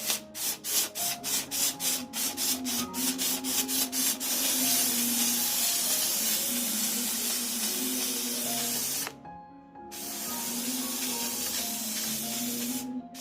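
Mini handheld steam cleaner jetting steam from its nozzle. It sputters in rapid spurts, about four a second, for the first few seconds, then settles into a steady hiss. The hiss cuts off briefly about nine seconds in and starts again.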